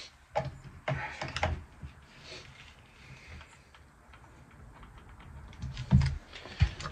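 Handling noise from plugging a prop's power cord back in: scattered clicks and knocks with rustling, then a loud dull thump about six seconds in and a smaller one just after.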